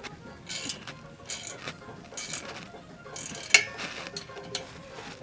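Socket ratchet working the exhaust bolts: repeated short bursts of ratcheting with small metal clinks, and one sharp metal clink about three and a half seconds in.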